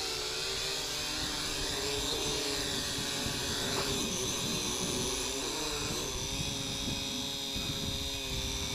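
SJRC S70W quadcopter's brushed motors and propellers whirring as it comes down and sets itself down on an automatic return-to-home landing. The pitch wavers a few seconds in, around touchdown, then holds steady while the props keep spinning on the ground.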